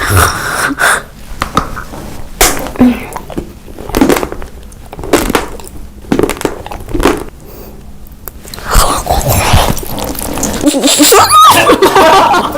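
Close-miked eating sounds: bites and chewing in short bursts about once a second, turning busier and louder in the last few seconds.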